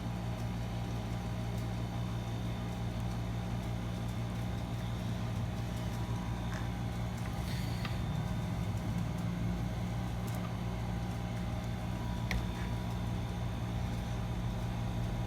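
A steady low machine hum, such as a fan or air-conditioning unit, runs throughout. A few faint small clicks sound about halfway through and near the end.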